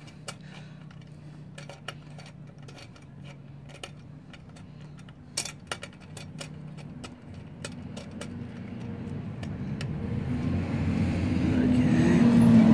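Small clicks and taps as a part is worked back into its groove in a GY6 scooter's transmission, over a steady low hum. From about halfway a low rumbling noise builds steadily and is loud by the end.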